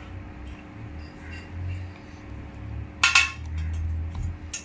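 Spoon and dish clatter as food is mixed: a few light clicks and one loud sharp clink about three seconds in, over a low rumble.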